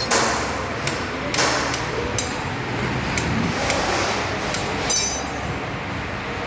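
Irregular sharp metal knocks and clinks of hand tools, hammer-like taps on metal, about a dozen over six seconds, over a steady low hum.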